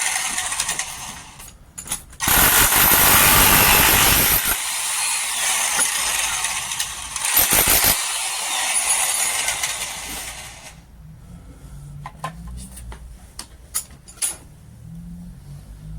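Electric demolition hammer running in bursts, loudest for about two seconds a couple of seconds in and again briefly near the middle, then falling away to scattered clicks and knocks.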